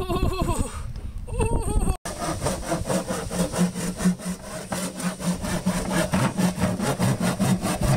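A hand saw cutting through the body of an acoustic-electric guitar in quick, even back-and-forth strokes, with a steady low tone ringing under it. A couple of seconds of voices come before the sawing starts.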